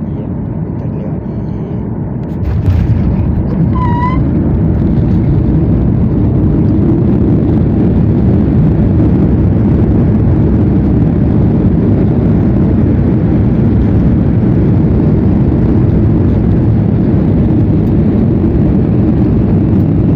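Jet airliner landing, heard from inside the cabin: a steady loud rumble of engines and rushing air that gets louder about two and a half seconds in and stays loud through the runway roll-out. A short beep-like tone sounds about four seconds in.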